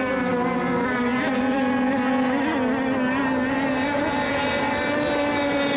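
Engines of several radio-controlled racing boats running at speed around the course, a steady overlapping whine whose pitch wavers slightly.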